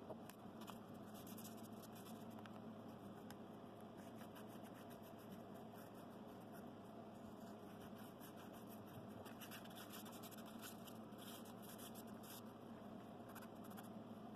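Faint scratching strokes of a flat hand file shaping the edge of a thin piece of soft wood, in quick irregular runs.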